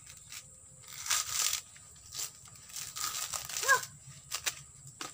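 Fibrous husk of a sprouted coconut being torn and pried off by hand and with a machete: rough tearing and crunching strokes in several bursts, with a few sharp clicks. A brief high chirp sounds about three and a half seconds in.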